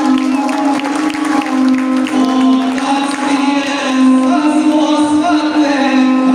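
Gusle, the single-string bowed folk fiddle, being played with a bow: one sustained melody moving in small steps between a few nearby notes.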